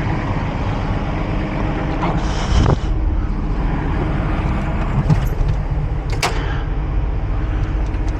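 Cat 349 excavator's diesel engine running steadily under load while the machine is lowered on its hydraulics. There is a brief hiss about two seconds in and a sharp squeak or knock about six seconds in.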